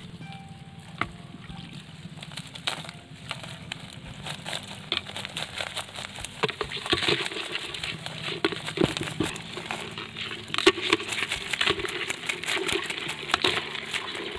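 Live crabs clicking and scraping against a plastic bucket and a bamboo-slat trap: a dense, irregular clatter that gets busier and louder about six seconds in.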